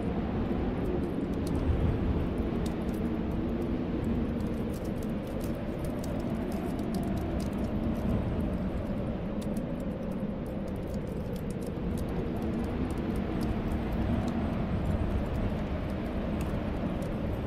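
Snowstorm wind blowing steadily with a low, slowly swelling howl, mixed with a crackling fireplace: many small scattered pops throughout.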